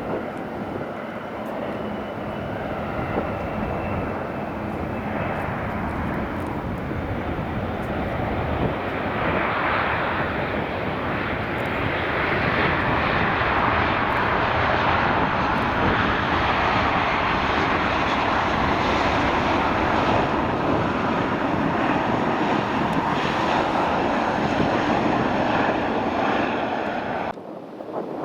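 Jet airliner engines passing close by. The noise builds over the first ten seconds or so, stays loud and steady, and cuts off suddenly near the end.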